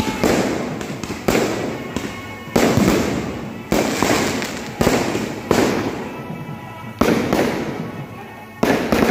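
Aerial firework shells bursting in quick succession, about eight loud bangs roughly a second apart, each trailing off before the next.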